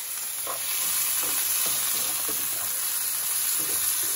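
Chopped vegetables and olives sizzling steadily in hot oil in a frying pan, the hot oil giving the sizzle; a slotted spatula stirs and scrapes them now and then.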